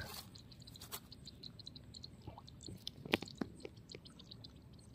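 Faint outdoor ambience of quick, high bird chirps, with a few soft taps and rustles about three seconds in from a snakehead fish wriggling over dry grass and twigs.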